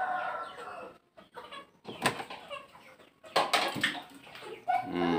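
Domestic chickens clucking in the background, with a few sharp knocks about two and three and a half seconds in.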